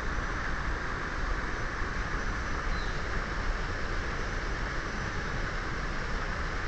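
Steady background hiss, even and unbroken, strongest in the upper midrange with a low rumble beneath, and a faint short chirp about three seconds in.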